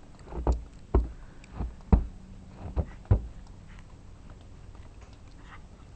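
Footsteps, about six heavy steps at a walking pace over three seconds, then they stop.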